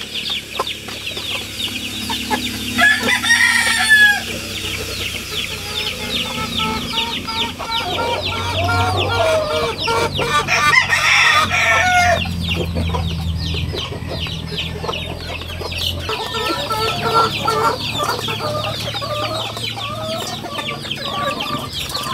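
Backyard chickens clucking, with a rooster crowing partway through, over a fast high ticking.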